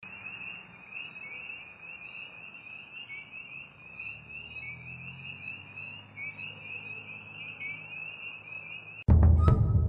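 A dense, steady chorus of many small animals calling in a high, fast-pulsing trill. About nine seconds in, loud music with heavy drum strokes cuts in suddenly.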